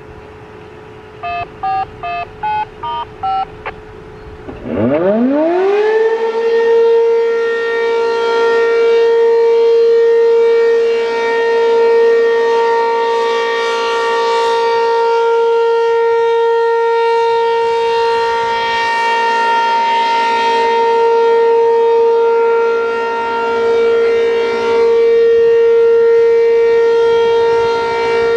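A short string of two-tone activation beeps over a radio scanner, then an ACA P-15 outdoor warning siren winds up with a rising glide and settles into a loud steady tone, swelling and fading as it rotates: the steady Alert signal of its one-minute test.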